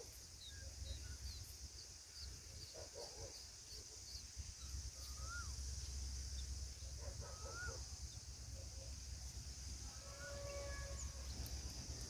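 Faint bird calls: a quick run of thin, high chirps in the first few seconds, then a few short, slurred whistled notes a couple of seconds apart. A steady high hiss and a low rumble run underneath.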